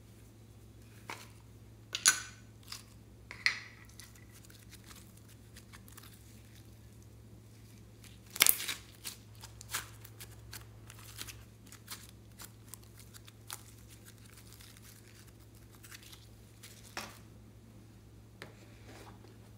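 Hands opening a small round plastic slime container and pulling the slime out: a few sharp plastic clicks and snaps about two and three and a half seconds in, a loud crackle about eight and a half seconds in, then scattered small crackles and ticks.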